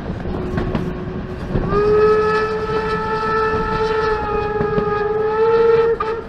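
Steam locomotive whistle: a short faint toot near the start, then one long blast of about four seconds beginning just under two seconds in, rising slightly in pitch just before it stops.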